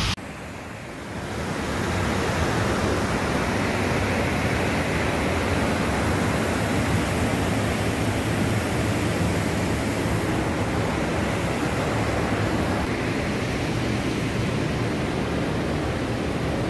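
Steady rushing noise of wind and water, heaviest in the low end. It drops suddenly at the start and swells back in over the first second or two.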